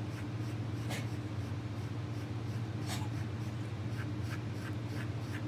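Dachshund digging at a carpet with its front claws: short scratchy strokes, sharper ones about a second in and about three seconds in, then a quick run of lighter scratches near the end. A steady low hum runs underneath.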